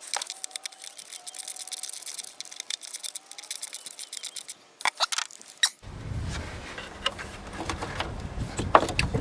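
Rapid light clicking and clatter of hand tools and parts being worked in a car's engine bay, then a few sharp knocks about five seconds in. After an abrupt change, a low rumble runs under more scattered clicks and knocks.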